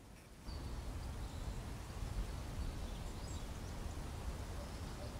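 Outdoor ambience: a steady background rush with a low rumble, cutting in about half a second in, with a few faint bird chirps.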